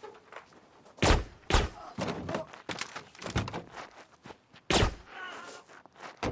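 Blows in a scuffle: a run of heavy thumps and knocks, four of them loud, as one man strikes another.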